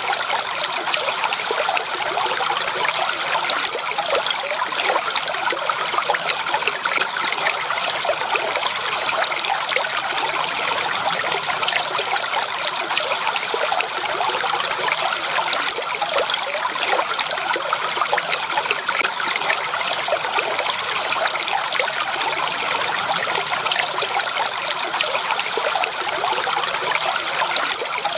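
Water flowing and trickling steadily, a continuous stream babbling over rocks with a dense splashing hiss.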